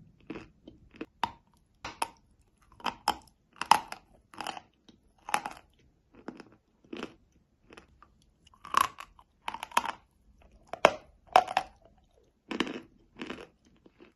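Close-miked crunching and chewing of edible chalk: irregular dry crunches, about one or two a second, with short pauses between bites.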